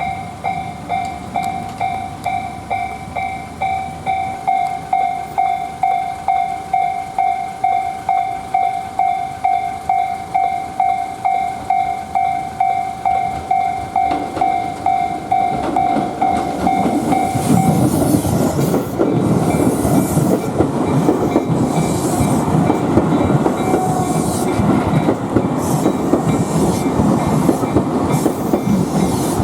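Japanese level-crossing alarm ringing at about two strikes a second while a Tobu Noda Line train approaches. The bell cuts out about two-thirds of the way through, and the train runs through the crossing with its wheels clattering rhythmically on the track.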